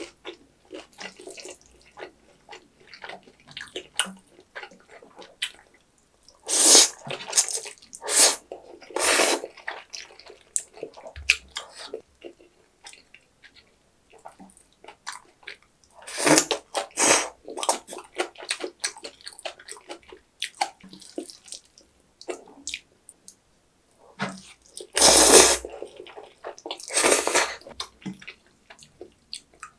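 Jjajang ramen noodles being slurped: loud wet slurps in three bunches, with quieter chewing and mouth clicks in between.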